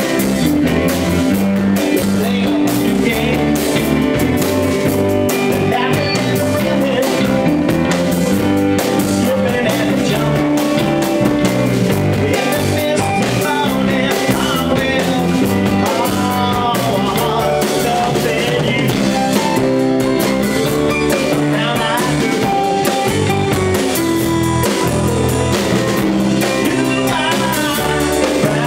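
Live band playing, a man singing lead into a microphone over drum kit, congas and a Hammond organ.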